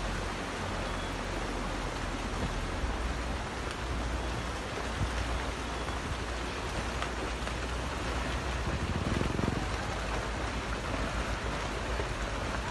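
Landslide debris pouring down a steep hillside: a steady rushing noise over a low rumble, with a few faint knocks of falling rock.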